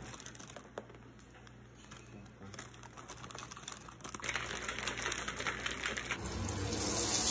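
Small kitchen sounds of a shake being made in a plastic shaker cup: faint clicks as milk is poured in, then a patter of small clicks as cereal pieces are tipped in from a rustling bag. A louder rushing hiss comes in near the end as the cup is shaken.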